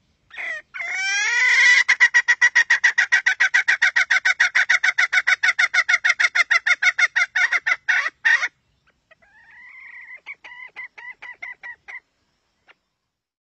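Red junglefowl hen cackling: a long run of rapid clucks, about seven a second, for some eight seconds, then a fainter series of clucks that opens with a rising note and stops about three seconds later.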